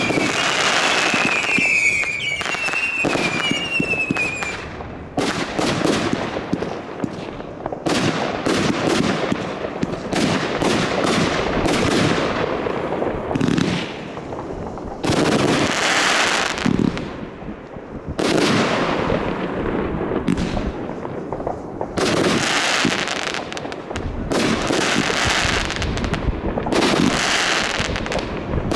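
Consumer fireworks being fired in a display. The first few seconds hold a run of short falling whistles, then come many bangs and crackling bursts in clusters of a few seconds each.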